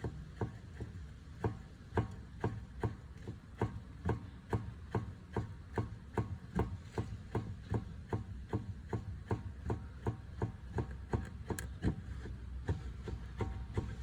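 Repeated knocking, about two to three knocks a second, from a 2017 Volkswagen Polo's steering rack as it is rocked with a pry bar: the steering-rack knock being traced.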